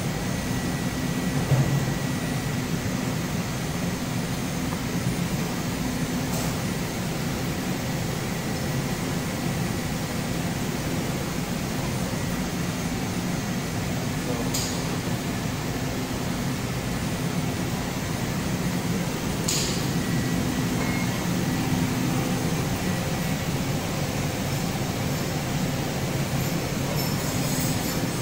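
Steady hum and fan-like noise from running machinery, with a few faint clicks.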